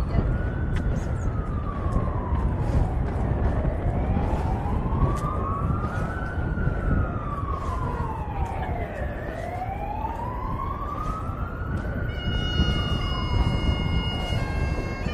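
An emergency vehicle siren in a slow wail. It rises and falls about every six seconds, over a steady low rumble. About twelve seconds in, the steady droning tones of bagpipes start up.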